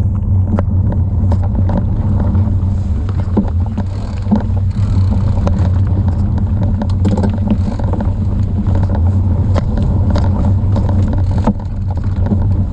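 Fat bike riding a rough dirt singletrack, picked up by a camera mounted low beside the front tyre: a loud steady low hum from the knobby tyre rolling, with frequent knocks and rattles over bumps and stones.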